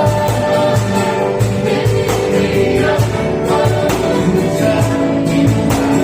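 Gospel song: a group of voices singing together over instrumental accompaniment with a steady beat.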